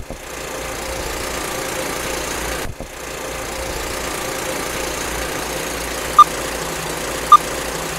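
Intro sound effect: a steady mechanical whirring hum that dips briefly a little under three seconds in, then two short high beeps about a second apart near the end.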